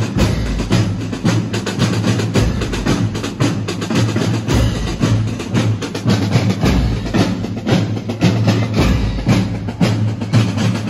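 Background music with a steady drum beat over a deep bass line.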